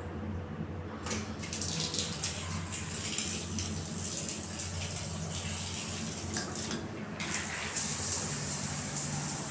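Water running steadily from a newly fitted bathroom tap during a pressure and leak test; the flow grows louder about seven seconds in.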